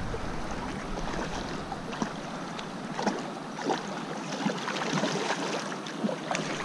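Shallow stream water rippling and burbling over stones, with small splashes near the end as a hooked rainbow trout thrashes at the surface.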